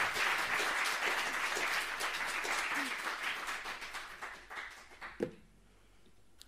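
Audience applauding at the end of a talk, a dense patter of many hands that thins and dies away about five seconds in.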